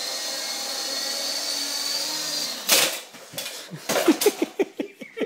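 Radio-controlled toy helicopter's motor and rotor whining steadily in flight, with a high steady tone. About two and a half seconds in, a sudden loud crash as it hits something, followed by a quick series of knocks and rattles.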